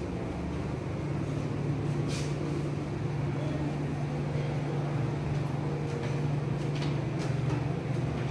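A steady low mechanical hum under a haze of street noise, with a short hiss about two seconds in and another near seven seconds.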